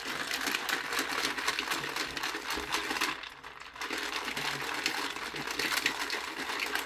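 Shaker cup of G Fuel powder and milk being shaken hard, a fast rattling clatter, in two bouts with a short break about three seconds in. The shaking is to dissolve the powder, which is slow to dissolve in milk.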